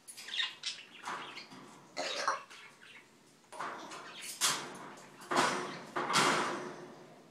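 African grey parrot making a string of about seven short, rough vocal noises, the longer and louder ones in the second half.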